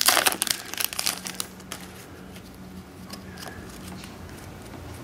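Foil wrapper of a Panini Contenders football card pack crinkling as it is torn open and pulled off the cards. The crinkling stops after about a second and a half, leaving only faint handling.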